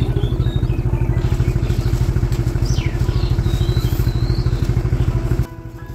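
Small motorcycle engine running steadily under way, a fast low pulsing throb. The level drops suddenly about five and a half seconds in.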